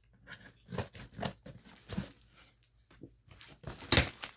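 A large cardboard box being opened by hand: irregular tearing, scraping and crinkling of cardboard and packing, with a sharp knock about four seconds in.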